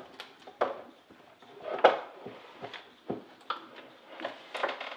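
Irregular light knocks and clicks of a wooden chronometer box being handled as its hinged lids are opened.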